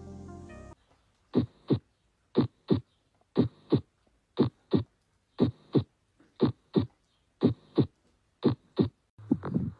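Recorded heart sounds: a two-part lub-dub beat (first and second heart sounds) about once a second, eight beats with silence between them. A short stretch of music ends under a second in, and near the end a different, noisier heartbeat begins.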